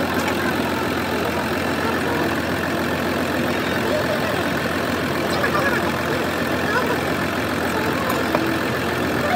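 A vehicle engine idling steadily, with faint voices.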